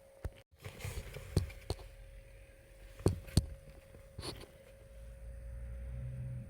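Work noise: a few sharp knocks and clicks and some short hissing, then a low steady hum swelling near the end.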